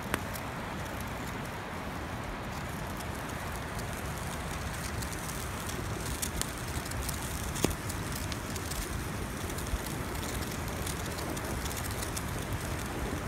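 Wood campfire burning with a steady hiss and scattered crackles, and a few sharper pops.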